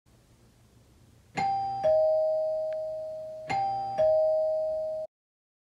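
Two-tone doorbell chime ringing ding-dong twice: a higher note then a lower one, each left to ring and fade, the pair repeated about two seconds later.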